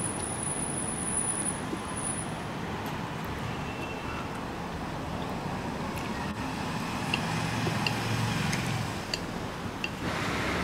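Steady background rumble of road traffic that swells a little about eight seconds in, with a few faint clicks of eating close by.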